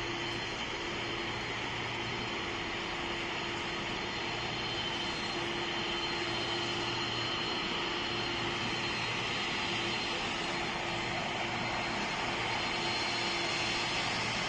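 Boeing 747-400's four GE CF6-80C2 turbofan engines heard from beside the runway as the jumbo jet comes in to land: a steady jet rush with a low hum, growing gradually louder as it approaches.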